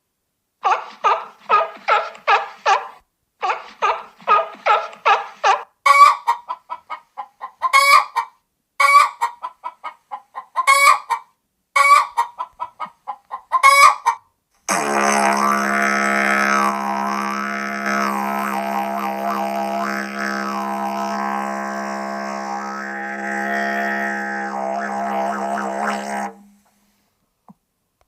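Google Pixel 9 ringtones playing from the phone. First comes a fast run of short repeated notes, then single ringing notes about one a second. About halfway through this changes to a steady low drone with a wavering melody above it, which stops suddenly about two seconds before the end.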